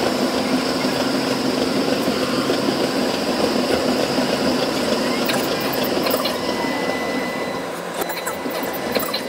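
Running noise heard from inside a moving tram: a steady rumble of wheels on rails and motor hum, with a few clicks and rattles near the end.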